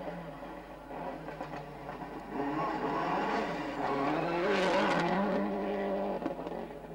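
Subaru Impreza WRC rally car's turbocharged flat-four engine revving up and down as the car drives hard past on gravel. It grows louder and is loudest about two-thirds of the way through, with a hiss of flung gravel as it comes closest.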